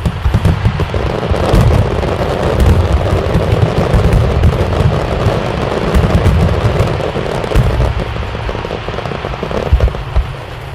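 Fireworks going off in a dense barrage: many overlapping deep booms with crackling between them, thinning slightly near the end.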